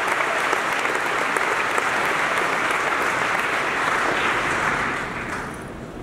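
Large audience in a hall applauding steadily, the clapping fading away in the last second.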